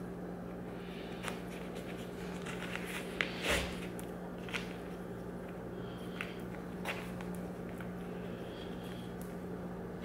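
Boot laces being pulled tight and tied: soft rustles and small clicks, with a louder rustle about three and a half seconds in, over a steady low hum.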